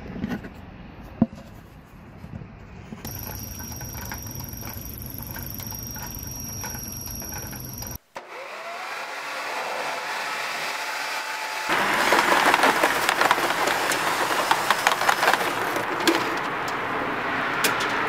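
Corded electric leaf blower running, forcing air through a lint-clogged dryer exhaust pipe. The noise grows much louder about two-thirds of the way in, with a few clicks near the end.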